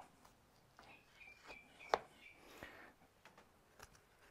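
Quiet knife work on a raw beef short loin: a boning knife slicing along the meat, with a few soft clicks and one sharper click about two seconds in. Faint bird chirps a little over a second in.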